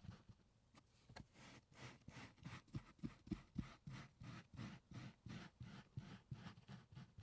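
A pet hair remover tool drawn back and forth over car carpet in quick repeated strokes, making faint rhythmic scratchy scraping, about three strokes a second.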